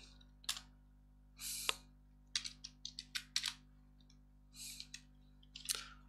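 Computer keyboard keystrokes: a dozen or so short, irregular clicks, with a quick run of them in the middle.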